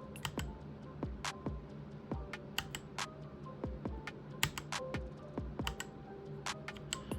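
Keys on a Keychron K12 mechanical keyboard being pressed in an irregular run of sharp clicks, a few a second, under quiet background music.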